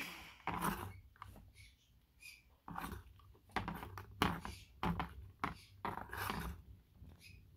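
Plastic fidget spinner dimple toy being spun and handled by hand: a run of irregular knocks and rubbing noises, about one every half second to a second.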